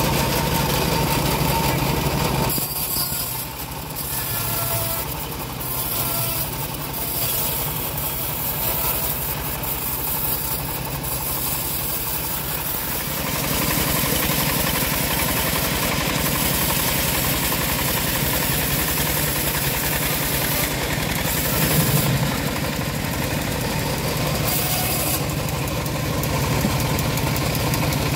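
Engine-driven portable bandsaw mill running steadily, its band blade sawing through a dry acacia log; the sawing noise grows fuller and hissier about halfway through.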